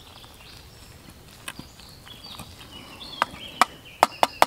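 A wooden spoon stirring noodles and greens in a metal mug, faint at first, then knocking against the mug's rim: five sharp knocks in quick succession over the last second and a half.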